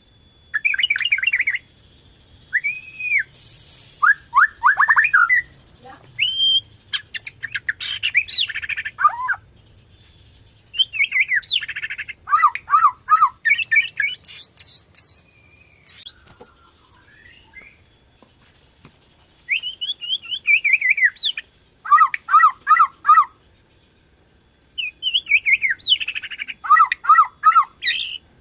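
White-rumped shama of the Borneo type (murai batu Borneo) in full song: loud phrases of one to two seconds broken by short pauses, mixing quick runs of repeated sweeping notes, fast chattering trills and slurred whistles.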